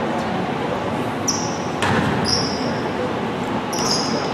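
Basketball game in a gym: sneakers squeak on the court several times over a steady crowd murmur, with a ball bouncing about two seconds in.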